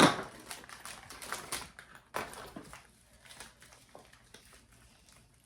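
Small items poured out onto a surface, clattering: a loud burst at the start, a rapid run of clicks and rattles, another burst about two seconds in, then scattered fainter clicks as they settle.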